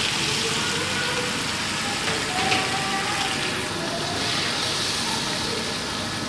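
Food sizzling in a hot cooking pan just after capsicum is added: a steady hiss.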